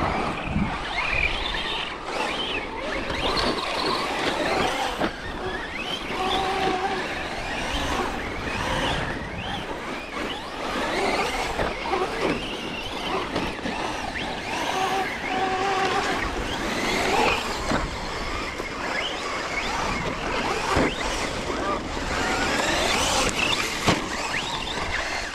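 Electric RC trucks driving, their motors whining and repeatedly rising and falling in pitch over a constant rushing noise.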